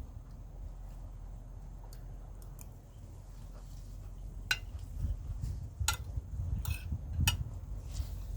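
Cutlery clinking against a plate or bowl while eating: a few sharp clinks from about halfway through, with low handling and mouth sounds between them, over a steady low hum.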